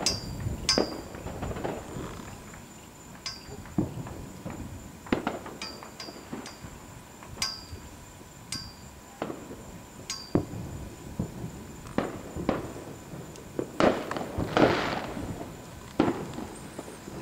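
Fireworks going off: irregular sharp bangs and pops, roughly one a second, some followed by a brief high ring, with a longer hissing burst near the end.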